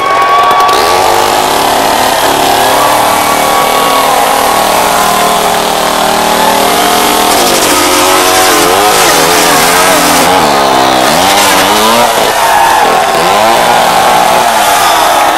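Two-stroke chainsaw running on hemp oil fuel, its throttle opened and closed over and over so the engine pitch rises and falls.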